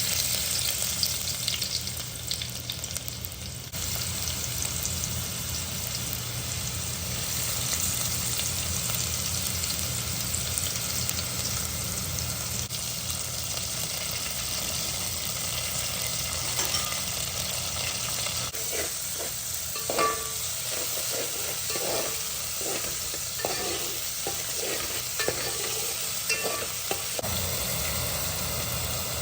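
Food sizzling as it fries in a cooking pot, a steady hiss with a low hum under it. In the second half comes a run of knocks and clatters against the pot as it is stirred.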